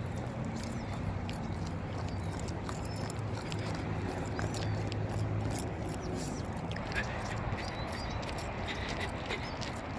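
Footsteps of someone walking in sneakers on a paved path, a loose run of light scuffs and taps, over a low steady drone that fades about six seconds in.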